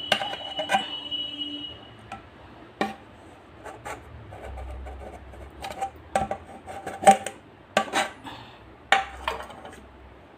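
Metal clatter of a knife and a metal cake tin against a metal plate: a knock at the start that rings on for about a second and a half, then scattered sharp clinks and knocks, clustered near the end.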